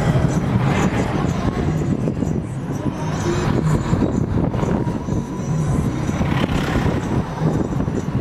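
Steady rumble of road traffic running continuously, with no single event standing out.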